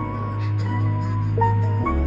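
Background music: soft sustained notes over a steady bass line that drops in pitch near the end.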